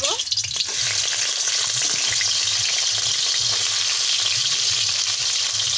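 Rohu fish pieces sizzling steadily in hot oil in a metal kadai, with a few light scrapes and taps of a metal slotted spatula in the first couple of seconds as the pieces are turned over.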